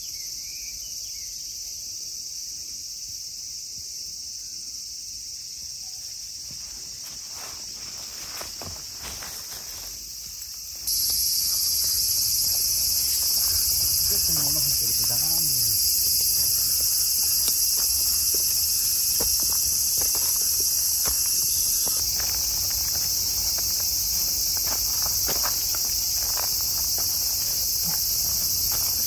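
Steady, high-pitched chorus of summer insects, which gets much louder about eleven seconds in, with light footsteps on a leaf-littered dirt path.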